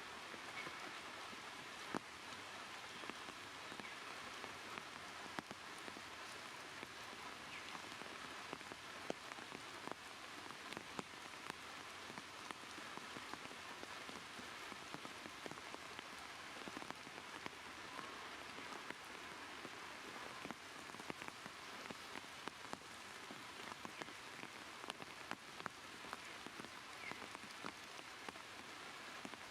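Steady light rain falling, a faint even hiss dotted with many small drop ticks.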